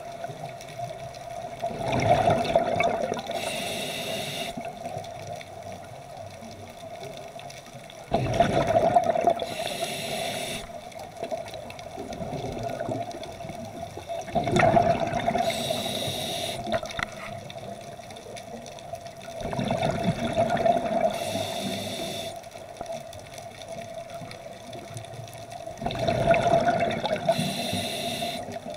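A scuba diver breathing through a regulator underwater: a high hiss with each inhalation and a low rumble of exhaust bubbles with each exhalation, one breath about every six seconds, five breaths in all.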